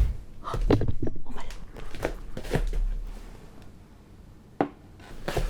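Kitchen items being handled: a dull thump, then a run of short knocks and clatters of dishes and utensils, and one sharp click about four and a half seconds in.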